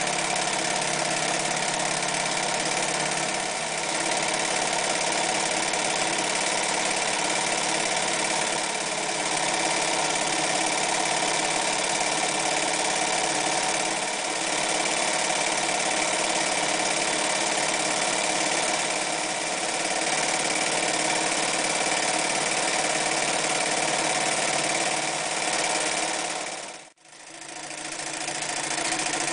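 Singer 316G electric sewing machine running steadily, its motor whirring as the needle stitches a decorative pattern. Near the end the sound cuts out abruptly and then fades back in.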